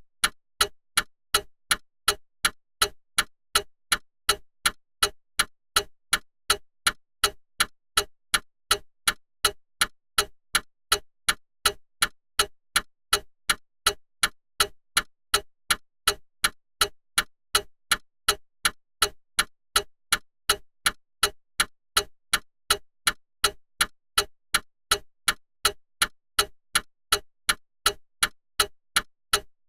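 Clock ticking: sharp, evenly spaced ticks at a steady, unchanging pace.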